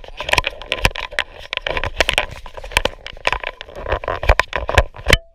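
Water slapping and splashing against the hull of a sailing kayak under way, a dense run of irregular knocks over a rushing noise, cutting off suddenly near the end.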